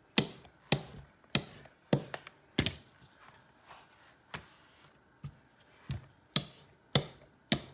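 Small rolling pin clacking sharply as it is pushed back and forth over tortilla dough on a marble counter, about one to two knocks a second, with a short pause about three seconds in while the dough is turned.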